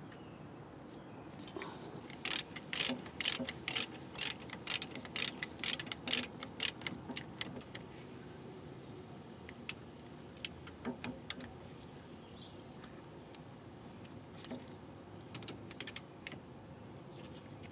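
Socket ratchet clicking as a brake caliper bolt is run in. A steady run of clicks, about two or three a second, starts about two seconds in and lasts some five seconds, followed later by a few scattered clicks.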